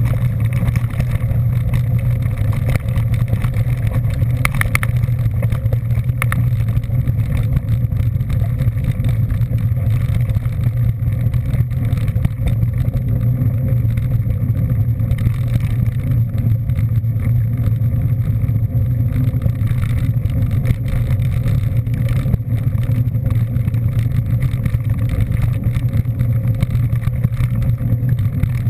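Vehicle engine running at a steady speed, a loud, unchanging low drone with a steady haze of road or wind noise above it.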